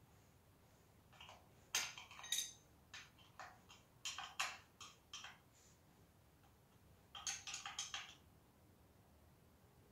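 Light metallic clicks and clinks of hand work on a loader's engine, bunched in three short flurries about two, four and seven seconds in, with quiet between.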